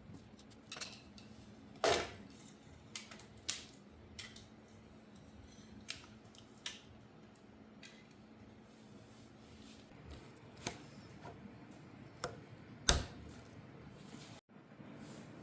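Hand tools and small metal motorcycle parts clinking and clicking at scattered moments during disassembly work, with a faint steady hum underneath that stops about two-thirds of the way through. The loudest clink comes near the end.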